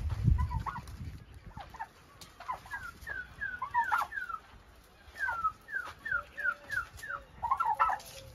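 Domestic white turkeys calling as they are herded: runs of short, high, downward-sliding calls, several a second, with a brief pause in the middle and a denser flurry near the end.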